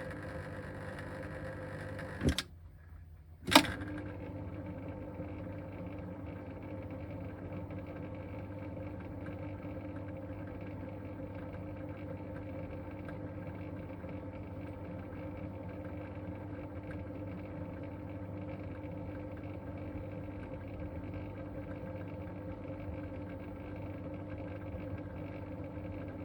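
Eheim 2217 canister filter's pump motor humming steadily with an abnormal tonal buzz, which the owner attributes to irregular winding of the motor coil. About two seconds in, a click cuts the hum off for about a second. A louder click follows, and the hum resumes with a lower dominant tone.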